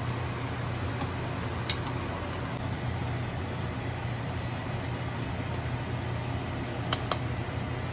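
Metal tongs clicking a few times against a stainless steel pot as octopus pieces are turned in simmering liquid, with a close pair of clicks near the end, over a steady low hum.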